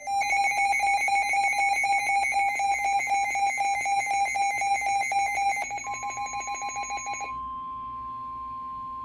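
A weather alert radio's built-in alarm beeping rapidly and shrilly, then cutting off about seven seconds in. Under its last second and a half, the steady single-pitch NOAA Weather Radio warning alarm tone starts and carries on alone; this tone announces a new warning broadcast.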